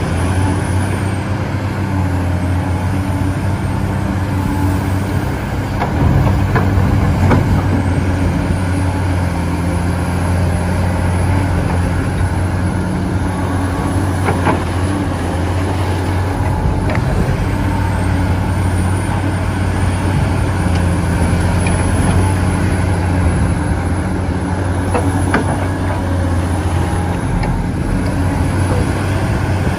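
A radio-controlled excavator running: a steady low motor hum with a thin high whine that rises and falls as the machine works, and a few light clicks.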